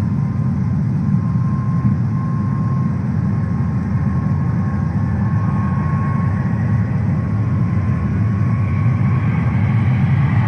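Airbus A350's Rolls-Royce Trent XWB jet engines on final approach: a steady low rumble with a faint high whine, growing louder and brighter near the end as the airliner closes on the runway.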